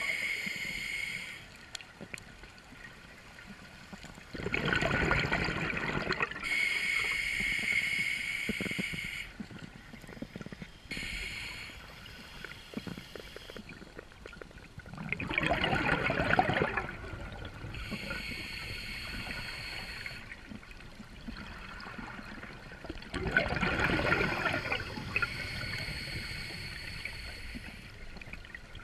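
Scuba regulator breathing underwater, heard as a slow repeating cycle: a hissing inhalation with a faint whistling tone, then a burst of exhaled bubbles. There are about three full breaths, each around 8 s apart.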